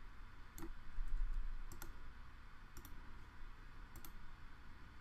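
Computer mouse clicking: four short clicks or click pairs about a second apart, some of them double-clicks. A low rumble swells briefly about a second in.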